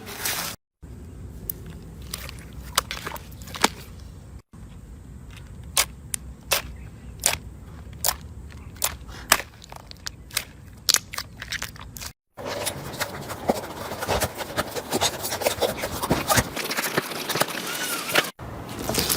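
Slime being squeezed and pressed by hand, giving sharp clicks and crackles. The sound comes in several short segments that break off abruptly and start again.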